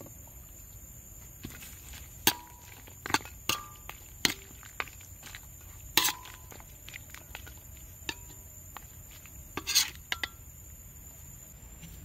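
Metal ladle clinking and scraping against a steel wok while stirring soup: a series of sharp clinks with a short ring, the loudest about two, six and ten seconds in.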